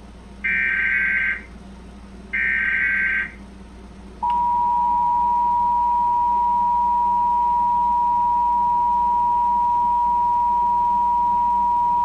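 Emergency Alert System warning: the last two of three SAME digital header bursts, each a harsh data screech lasting about a second, then, about a second later, the steady two-tone EAS attention signal, held for about eight seconds. It announces a Civil Danger Warning.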